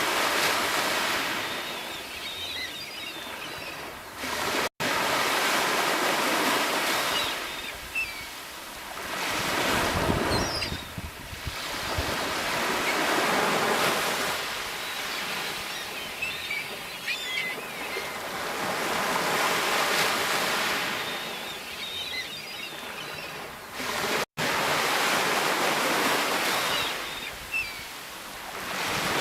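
Sea waves breaking and washing up the shore, swelling and ebbing in repeated surges every four to five seconds. The sound cuts out for an instant twice.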